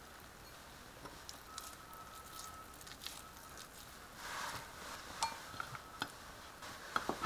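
Quiet food-prep handling at a kitchen counter: faint rustling with scattered light clicks and clinks from a glass bowl and plate as imitation crab sticks are shredded by hand, then a sharper knock at the very end.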